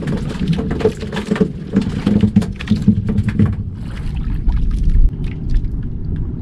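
A fishing boat's engine running with wind noise on the microphone, and scattered knocks and rattles in the first half.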